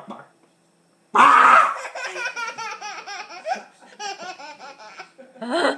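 Toddler laughing: silent for about a second, then a sudden loud burst of laughter followed by a long run of quick, high-pitched giggles.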